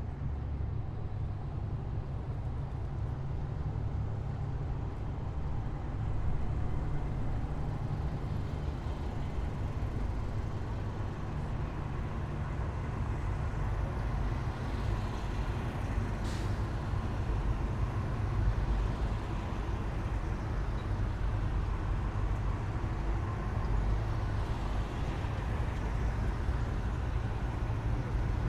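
Heavy military vehicles driving past, a steady low engine rumble, with a brief sharp hiss about sixteen seconds in.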